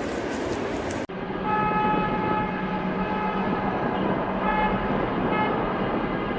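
A vehicle horn honking over steady traffic noise: one honk of about a second, then two shorter honks near the end.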